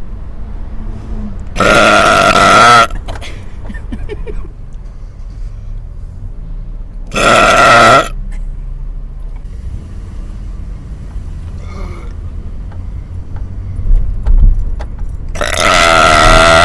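Three loud, drawn-out belches, each about a second long, the last running on near the end, over the steady low hum of a car on the move.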